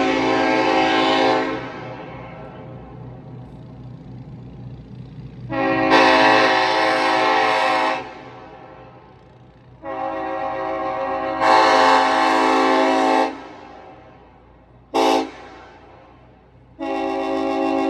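Nathan Airchime K5LLA hybrid five-chime train horn blown on compressed air, sounding its chord in repeated blasts: one ending about a second and a half in, two long blasts of two to three seconds each, a short toot near the end, then another blast starting just before the end. Each blast stops sharply and leaves a fading echo.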